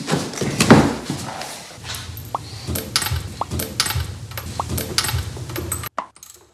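Jet ski seat handled and lifted off, then a wrench fitting spark plugs into the engine: a run of sharp metal clicks and knocks with a few short rising squeaks. It stops abruptly near the end, leaving only a few faint clicks.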